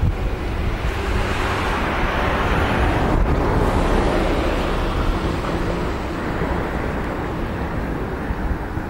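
A vehicle passing by, its noise swelling over the first few seconds and fading again, over a low rumble of wind on the microphone.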